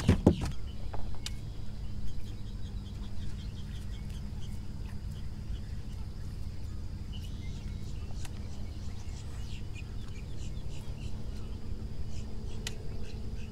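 Birds chirping and calling over a steady low hum, with a few clicks in the first couple of seconds.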